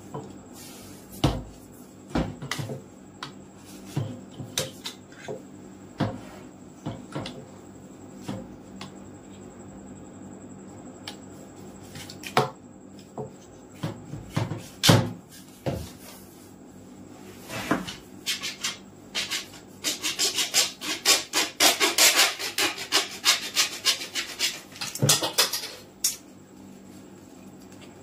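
Plastic electrical PVC pipe being handled and knocked a few times. Then it is cut to length with rapid back-and-forth rasping strokes, about three or four a second, for some six seconds near the end.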